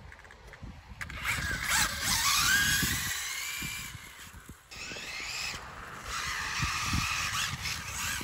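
Radio-controlled car's sensored brushless motor whining as it speeds up and slows, in two spells about a second and six seconds in, with the hiss of its tyres on wet tarmac.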